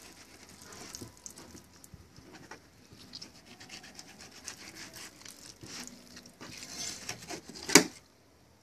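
Fillet knife scraping along a plastic cutting board as it slides between skin and flesh to skin a king mackerel fillet, with scattered small ticks and one sharp knock of the blade near the end.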